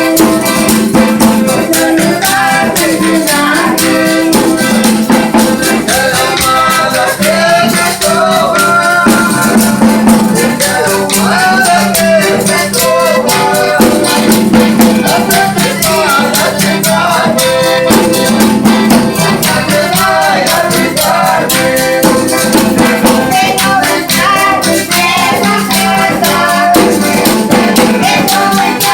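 Folia do Divino devotional folk music: voices singing a melody over held instrumental tones, with a steady, fast rhythm of shaken percussion throughout.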